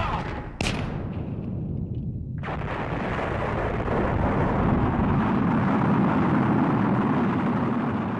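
Explosion sound for a nuclear blast: a sharp crack about half a second in, then a loud rumble that builds from about two and a half seconds in and holds.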